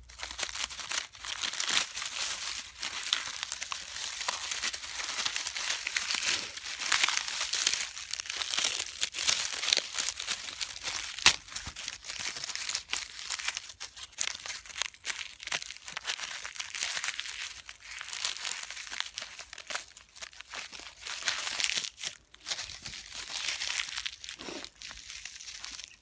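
Dry corn husks and leaf litter crackling and rustling as gloved hands rummage through them and peel husks off leftover ears, with a sharp snap near the middle.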